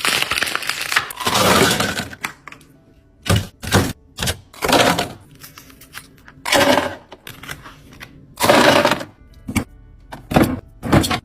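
Ice cubes clattering and cracking as they are poured and dropped: one long clatter over the first two seconds, then a string of about nine short, separate clatters.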